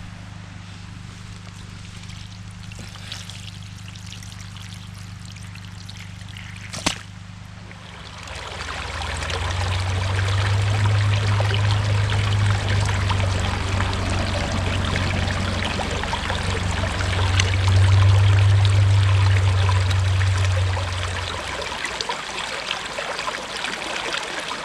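Water pumped up from the creek by a sump pump starts gushing and splashing out of a hose about eight seconds in, over a steady low hum.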